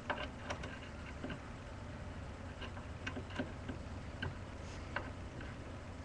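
Faint scattered clicks and taps of a RAM module being handled and pushed into a motherboard memory slot, over a low steady hum.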